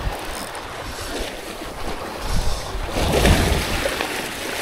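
Shallow seawater washing and sloshing over rocks at the shoreline, with wind buffeting the microphone; the washing grows louder about three seconds in.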